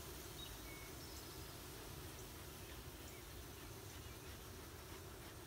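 Faint steady hum of honeybees at an opened nucleus box, over a low rumble, with a couple of short bird chirps in the first second or so.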